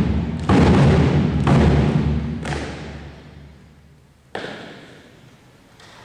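Marching drum corps of bass and snare drums plays three loud strikes about a second apart, each ringing in the gymnasium's echo as the piece ends and dies away. About four seconds in comes a single sharp knock.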